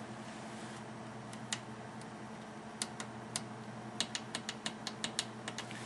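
Small push buttons on the front panel of an ipcas USB floppy emulator clicking as they are pressed to step through the virtual floppy numbers: a few scattered clicks, then a quick run of about four to five clicks a second in the second half. A steady low hum from the running PC lies underneath.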